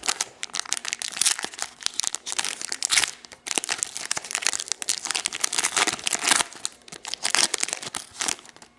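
Foil wrapper of a trading-card pack crinkling and tearing as it is opened and handled, with rapid irregular crackles.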